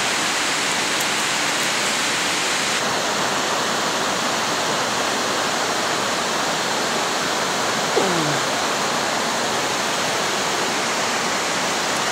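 Steady rush of river water pouring over a dam's spillway. About eight seconds in, a brief falling squeak cuts through it.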